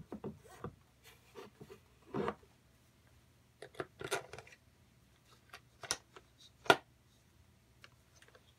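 Small metal air-engine parts being handled and fitted together by hand on a workbench: irregular clicks, taps and short scraping rubs, with one sharper, louder click about seven seconds in.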